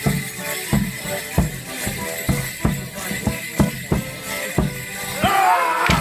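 Border Morris dance music: sustained instrument tones over a steady beat of sharp, bass-heavy strikes, about two to three a second. Near the end a voice rises and falls in a long gliding shout.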